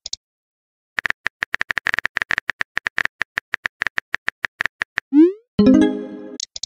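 Phone-messaging sound effects: rapid keyboard typing clicks for about four seconds, then a short rising swoosh and a brief chime as a text message is sent.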